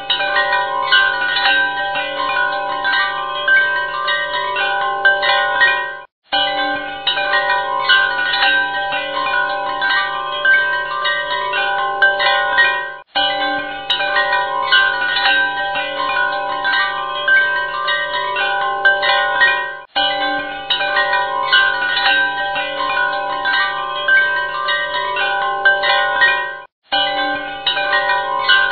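Chimes ringing over a steady low drone, a short recorded loop that breaks off and restarts about every seven seconds.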